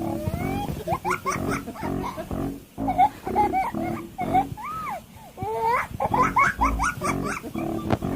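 A dog whining and yowling in many short cries that swoop up and down in pitch, over background music with a steady beat.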